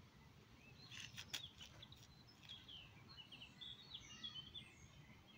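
Faint birdsong: a quick run of short, high chirps in the middle of quiet outdoor background noise, with a few sharp clicks about a second in.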